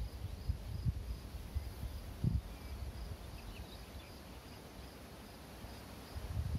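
Wind buffeting the microphone in uneven low gusts that ease off in the second half, over a faint, evenly repeated high chirping of an insect, about three pulses a second, and a few faint bird chirps.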